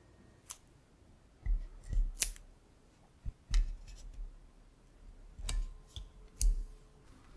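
A handful of sharp clicks and soft thumps, spaced about a second apart, from a foil-covered cardboard cake board being handled, set down and pressed flat onto a metal cake turntable.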